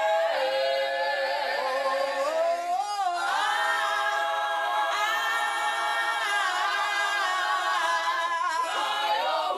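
Gospel vocal group singing a cappella in close harmony, holding long sustained notes that shift chord a few times.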